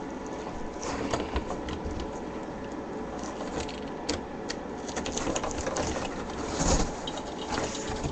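Cardboard being worked by hand, with irregular scraping, rustling and clicking. A louder knock comes near the end.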